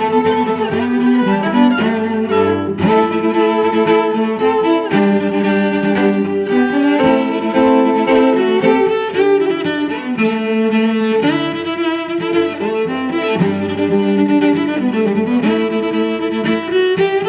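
Background music with bowed string instruments playing a melody.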